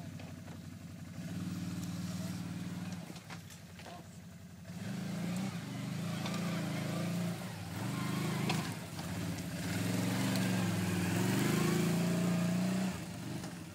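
ATV engine revving in uneven surges under load while climbing a steep trail, quieter for a moment early on, louder through the later part and falling off near the end.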